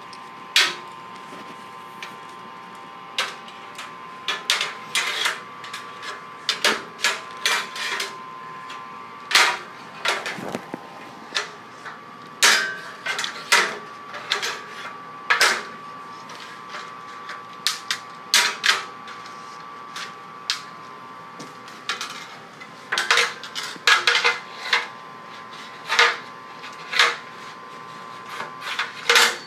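Aluminium stepladder being knocked and clanked, irregular sharp metallic taps coming singly and in quick clusters, over a faint steady high-pitched hum.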